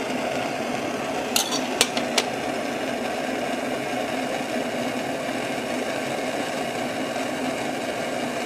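A small improvised fire burning under a cooking pot, giving a steady rushing noise with three sharp crackles about one and a half to two seconds in.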